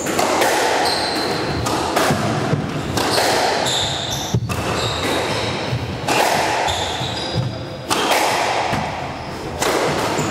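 Squash rally: the ball cracks off rackets and the court walls at an irregular pace, each hit echoing around the court, with short high shoe squeaks on the wooden floor between shots.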